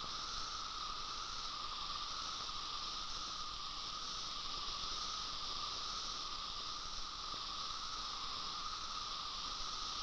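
Chorus of periodical cicadas: a steady, shrill drone of massed singing males, with a tone near 1 kHz under a higher hiss.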